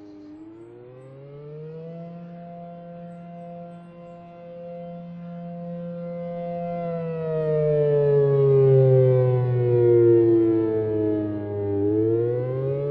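ACA Allertor 125 electronic outdoor warning sirens sounding the attack signal, a wailing tone. The pitch climbs, holds, slides slowly down, then climbs again near the end. It is loudest in the middle of the descent.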